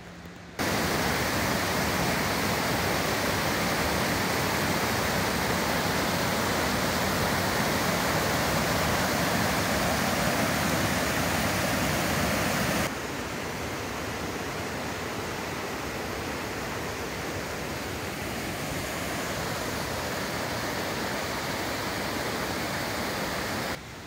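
Mountain stream rushing over boulders in small white-water cascades, a steady loud rush. It starts abruptly and drops to a quieter rush about halfway through.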